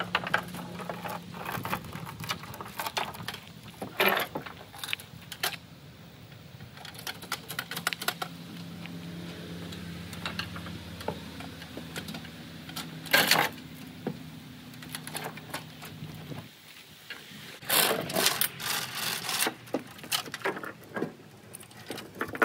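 Steel tie-down chains clanking and rattling against metal and the trailer's wooden deck as they are handled and pulled loose, in several bursts of clatter. A steady low hum runs underneath and cuts off about two-thirds of the way through.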